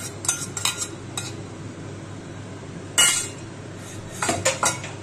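A steel spoon clinking and scraping against a steel mixing bowl as the last of the beaten egg is emptied into the pan. A few quick clinks come in the first second, a louder clatter about three seconds in, then another cluster of clinks near the end.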